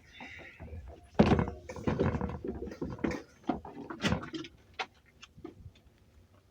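Knocks and thumps from someone heading out through the RV's door, dense for a few seconds, then trailing off into a few light clicks.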